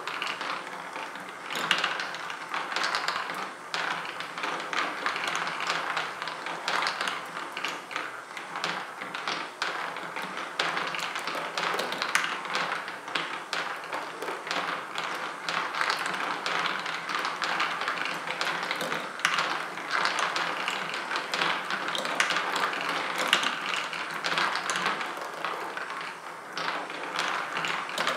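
Marble machine running: marbles rolling and clattering along its tracks, with a steady stream of clicks and ratcheting from the lift and gear mechanism.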